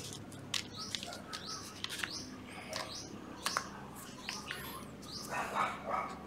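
Small birds chirping in short, quick calls, with a few light clicks.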